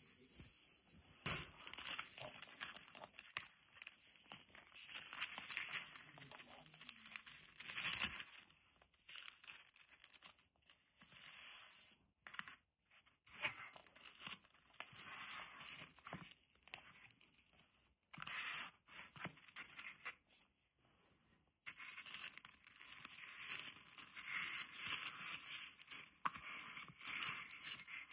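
Hands handling paper: a kraft envelope and a sheet of pink wrapping paper rustling and crinkling in short irregular bursts, with a few brief quiet gaps.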